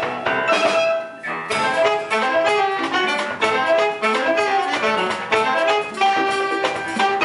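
Live chamber ensemble of grand piano, violins, cello, saxophones, drum kit and congas playing a mambo in punchy rhythmic accents, with a brief break about a second in before the full band comes back in.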